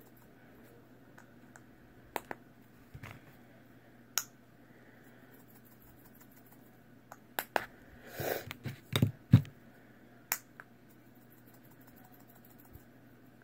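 Handling sounds while glitter is added to slime: scattered sharp clicks and taps, with a short run of quicker clicks and rattling about eight to nine seconds in.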